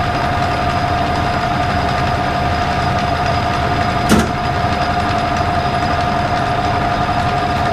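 Metal lathe running with a steady high whine while turning a bushing. There is a single sharp click about four seconds in.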